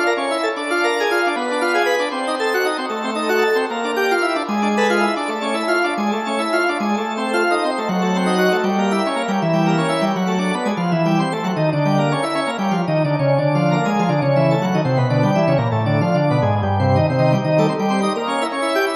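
Instrumental keyboard music, runs of quick notes over a bass line that steps lower through the second half.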